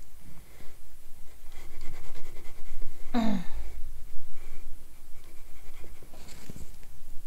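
A person breathing close to the microphone, with one short hum that falls in pitch about three seconds in, over a low steady rumble and faint scratchy noise.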